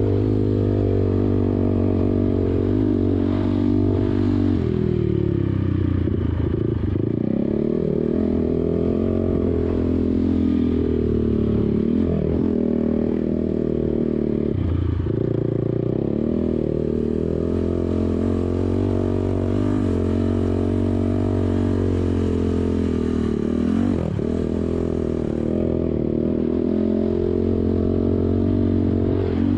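ATV engine running hard while riding, its pitch dropping and climbing back several times as the throttle is eased off and reopened.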